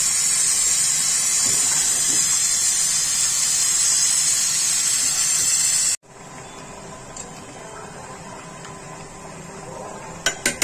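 Meat curry cooking in an aluminium pot: a loud steady sizzling hiss that cuts off suddenly about six seconds in, followed by a quieter simmering pot and a couple of sharp clinks of the steel ladle against the pot near the end.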